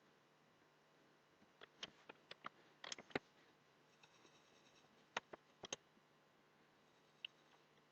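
Faint sharp clicks and light taps of small objects being handled at a workbench, a quick cluster about two to three seconds in, another pair about five to six seconds in, and one more tick near the end, over near silence.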